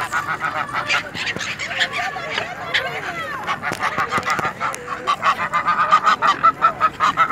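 Greylag geese honking, a run of short calls that comes thicker and louder in the last couple of seconds.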